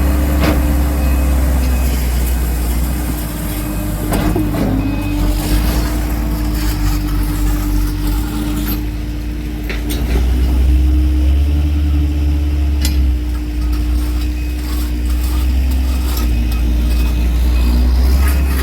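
Heavy work vehicle's engine running steadily with a deep rumble, with a few sharp knocks.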